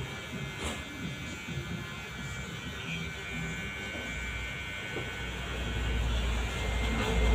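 Electric hair clippers buzzing steadily as they cut a boy's hair. A low rumble builds over the last few seconds.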